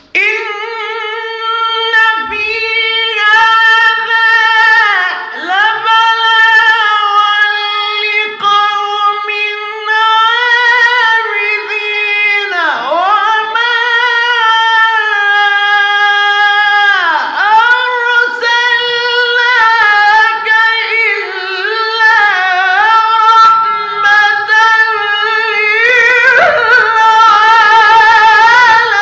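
A qari's melodic Quran recitation: a man's high voice drawing out long, ornamented held notes, with a few deep downward swoops of pitch between phrases.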